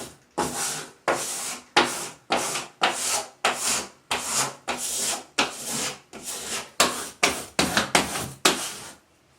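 Squeegee scraping over a vinyl decal's application tape as it is rubbed onto a wall in repeated outward strokes, about two scrapes a second, stopping shortly before the end.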